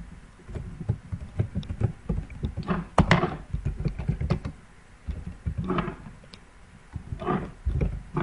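Typing on a computer keyboard: irregular key clicks, with one sharper click about three seconds in.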